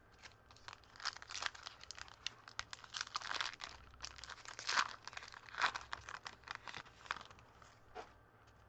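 A 2014 Topps Series 1 baseball card pack's wrapper being torn open and crinkled by hand, in irregular crackles and rustles with a couple of louder tears about halfway through.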